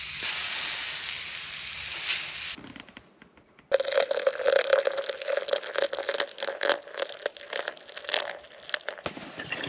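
Deer bologna sizzling on a hot wood-stove top for the first couple of seconds. After a short lull, coffee pours from a stainless steel percolator into a mug, a crackly, splashing stream.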